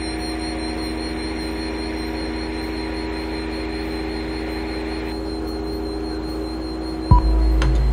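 Electronic soundtrack drone: a steady low rumble and hiss with a few held tones. About seven seconds in, a sharp click sets off a louder, deeper drone, with a few more clicks near the end.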